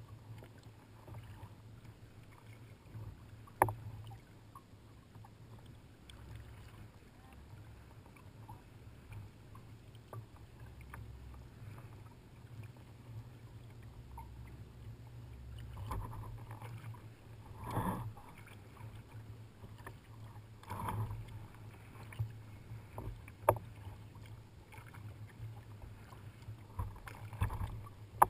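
Kayak paddles dipping and splashing in the water as kayakers paddle, with a few sharp knocks, over a steady low hum.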